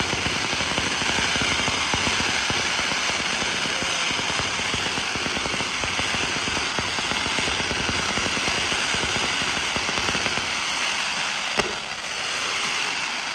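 Fireworks barrage fired in quick succession: a dense, continuous crackle of launches and small bursts, with one sharper bang near the end.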